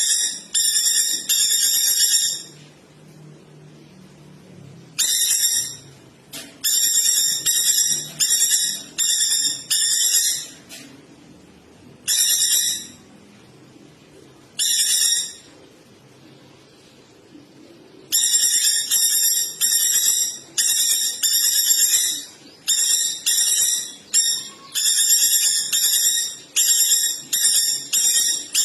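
White-rumped shama song on a masteran recording: high, whistled, trilling phrases about half a second long, repeated in quick runs with pauses between.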